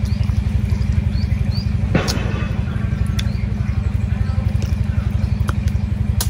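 A steady, low, rapidly pulsing mechanical throb, with a few sharp clicks and some faint high chirps in the first couple of seconds.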